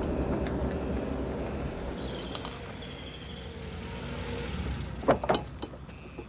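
Small hatchback's petrol engine running at low speed as the car rolls along a dirt track and draws up, the sound fading over the first few seconds. Two short sharp sounds about five seconds in.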